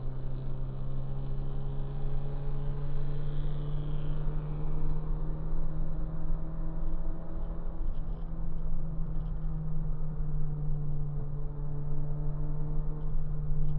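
Car engine running at a steady highway cruise, heard from inside the cabin over tyre and road noise; its note climbs slowly as the car gathers speed.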